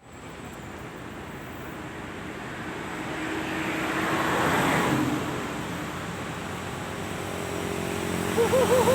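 A vehicle passing by, its noise swelling to a peak about halfway and then fading. Near the end a quickly repeating warbling tone starts up.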